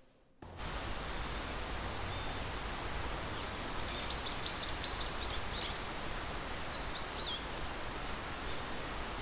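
Garden ambience that starts abruptly about half a second in: a steady outdoor hiss, with a small bird giving a few quick rising-and-falling whistles about four seconds in and again around seven seconds.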